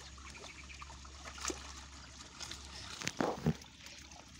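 Hands groping in shallow, muddy ditch water for catfish: small splashes and trickles of water, with a louder burst of splashing about three seconds in.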